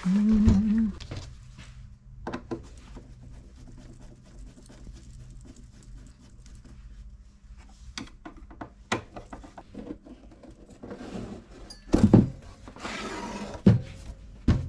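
Turntable being dismantled from underneath: scattered small clicks and knocks of a screwdriver working the screws of the hardboard bottom panel. A loud knock comes about twelve seconds in, then about a second of scraping as the panel comes away.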